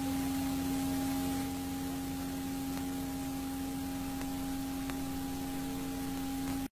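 A steady electrical hum over an even hiss. It is one low tone with a fainter higher overtone, and it cuts off suddenly at the end.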